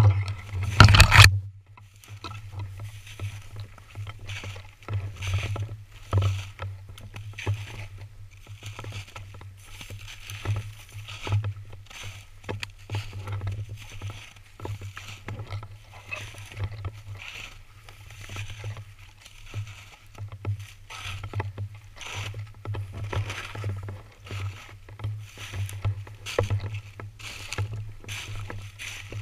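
Footsteps crunching through snow and dry grass, with stalks and twigs brushing and scraping against the gun and its mounted camera, over a steady low rumble of handling noise. A couple of louder knocks come about a second in.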